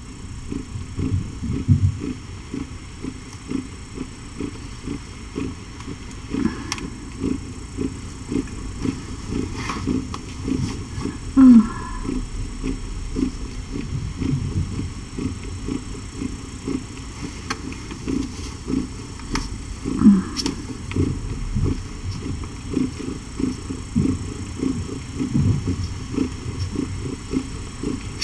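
Mother cat purring steadily and rhythmically while her kittens nurse. Two short, louder low sounds that fall in pitch break in about 11 and 20 seconds in.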